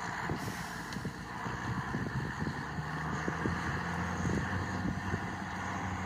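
County four-wheel-drive tractor's diesel engine pulling a plough up a hillside, heard from a distance as a steady low drone under load.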